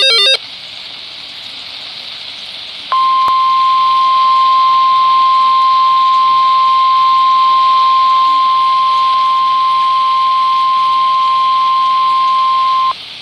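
NOAA Weather Radio 1050 Hz warning alarm tone: one steady, high single-pitched beep held for about ten seconds, signalling that a warning broadcast is about to follow. It comes after the last moment of a warbling SAME digital data burst and a few seconds of radio hiss, and cuts off sharply near the end.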